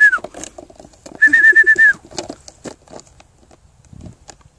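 A whistle with a fluttering, trilling tone, blown in short blasts to call a dog back. One blast is just ending at the start and a second comes about a second in, lasting under a second.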